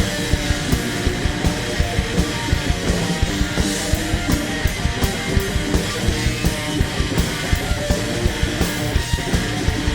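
Rock band playing a punk-rock song: electric guitars over a fast, steady drum beat.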